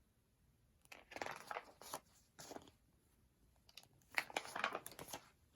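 Paper rustling as the pages of a picture book are handled and turned, in two stretches: about a second in, and again about four seconds in.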